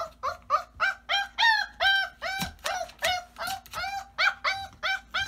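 Clumber spaniel puppy crying in a rapid, unbroken string of short high squeals, about four a second.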